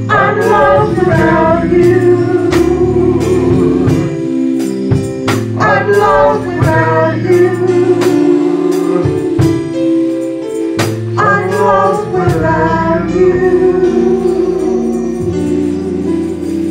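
Gospel praise-and-worship singing: a woman's lead voice with other women singing behind her, over instrumental accompaniment with sustained low notes and a steady beat.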